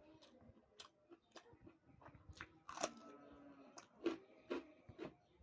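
Close-miked chewing of puri (fried Indian bread) with chana dal sabji: a string of sharp, wet mouth clicks and smacks, the loudest about three seconds in.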